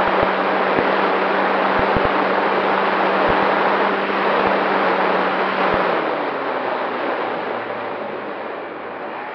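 Wind rushing over the onboard camera of a radio-controlled Cessna 188 model plane in low flight, with the model's motor humming steadily and a few short low thumps. About six seconds in the hum stops and the rush grows quieter as the model glides down to land on grass.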